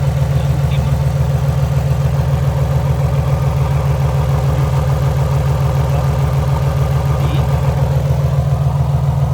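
2006 Nissan 350Z's 3.5-litre V6 idling steadily with a pulsing beat while it misfires: coil five is unplugged and coils four and six give no spark.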